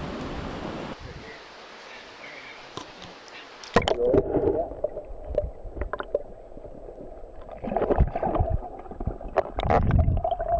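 Water heard through a camera held underwater: a sharp splash about four seconds in as it goes under, then muffled gurgling and sloshing that surges louder twice toward the end.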